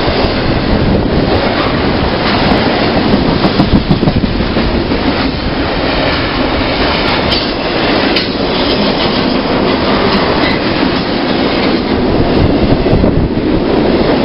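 Double-stack intermodal container freight train passing close by at speed. Its cars and wheels make a loud, steady running noise on the rails.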